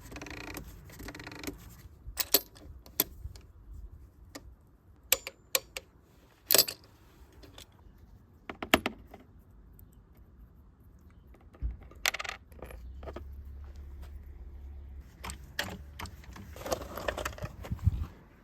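Scattered sharp metallic clinks and knocks of tools and parts being handled, with a steady low hum from about 12 to 15 seconds in.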